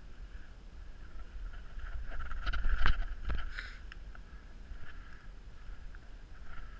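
Footsteps on a soft dirt trail with a low rumble on the microphone, and a few short sharp snaps about halfway through.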